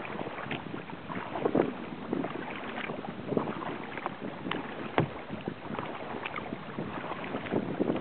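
Kayak being paddled across calm water: irregular small splashes of the paddle and water lapping at the hull, with light wind on the microphone.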